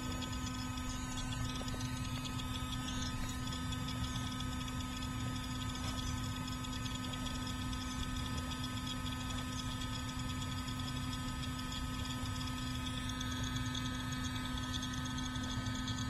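Navac 4 CFM cordless vacuum pump running steadily with a constant hum, pulling an air-conditioning line set down to its final deep vacuum in the 400-micron range.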